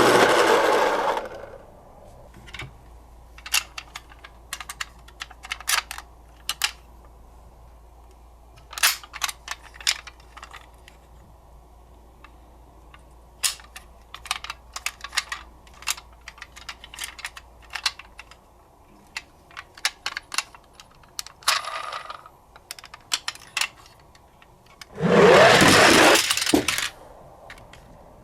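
Small die-cast toy ambulances and police cars clicking and clattering against each other and a hard surface as they are handled, in many short, irregular knocks. A louder rushing noise fades out a second in, and another lasts about two seconds near the end.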